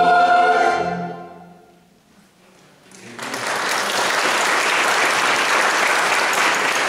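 A church choir's final held chord cuts off and rings away in the room. After about a second of silence the congregation breaks into steady applause.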